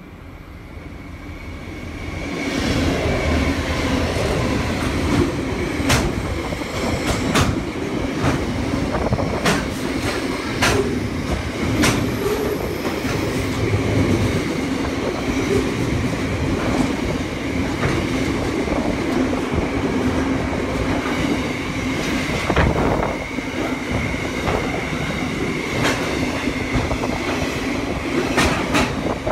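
Intermodal freight train hauled by two LDP class diesel locomotives passing close by. The sound grows louder over the first two seconds or so as the locomotives arrive. A long string of wagons and containers then rolls past, with wheels clicking over rail joints at irregular intervals and a steady high-pitched wheel squeal.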